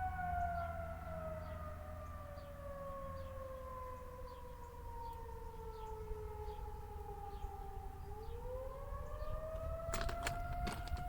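Federal Signal 2001-130 electromechanical outdoor warning siren sounding the wailing attack signal: its tone slides slowly down for about eight seconds, then starts climbing again. A few sharp clicks near the end.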